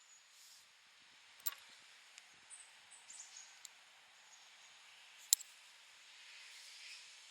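Metal knitting needles clicking against each other as stitches are worked: a few sharp clicks, the loudest about five seconds in, with lighter ticks between, over a faint steady hiss.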